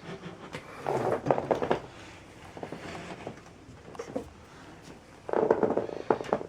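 Bursts of rattling and knocking, as of hard objects being handled, about a second in and again near the end, with scattered light knocks between. No motor is running.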